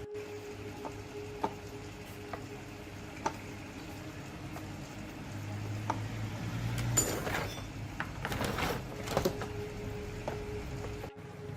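Handling sounds during work on an old ceiling fan: scattered light clicks and knocks of parts and tools. A short stretch of scraping and rustling comes in the middle, over a faint steady hum.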